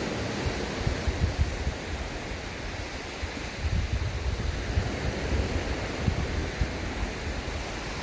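Sea waves washing onto a beach, a steady surf hiss, with wind buffeting the microphone in gusts, strongest about halfway through.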